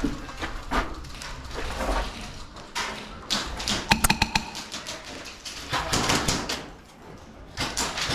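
Scattered sharp clicks and taps during airsoft play, with a quick run of rapid clicks about four seconds in.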